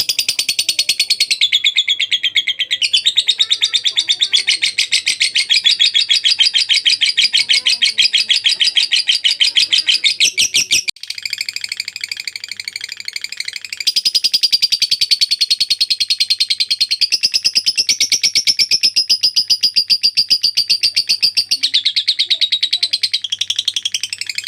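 Lovebird singing a long 'ngekek': a rapid, high chattering trill held for many seconds. It breaks off briefly about eleven seconds in, then picks up again.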